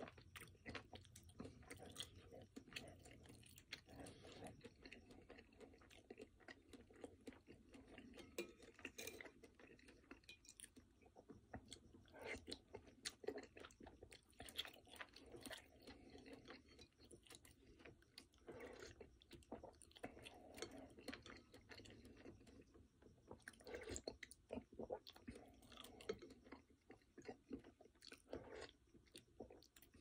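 Quiet, close-miked chewing of chicken pozole with hominy, full of small wet mouth clicks. A metal spoon scrapes and taps in a ceramic bowl as it scoops up more soup.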